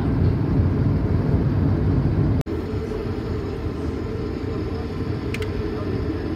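Airliner cabin noise: a steady, loud low rumble in flight, then after a sudden cut about two and a half seconds in, a slightly quieter rumble as the plane rolls on the ground.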